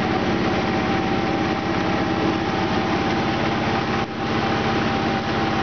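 SKJ150 flat-die wood pellet mill running under load, its electric motor and drive humming steadily with a fine fast pulsing and a steady whine, as sawdust is pressed through the die into pellets.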